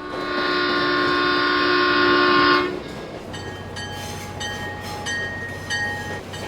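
Train horn blowing one long chord of several notes that cuts off sharply about two and a half seconds in. It is followed by a bell ringing in a steady rhythm of about one and a half strokes a second over a low hum.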